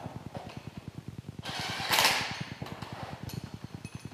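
A steady, fast-pulsing mechanical hum, with a short burst of rasping noise about two seconds in.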